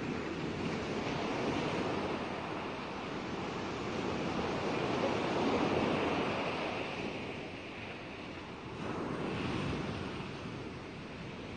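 A steady rushing noise with no clear pitch, swelling and easing in slow surges every few seconds.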